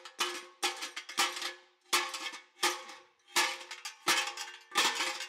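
Repeated sharp metal-on-metal strikes against the torch-cut inner bearing race on a windmill compressor crankshaft, working it loose. About eight strikes, roughly one every three-quarters of a second, each ringing briefly with the same metallic tones.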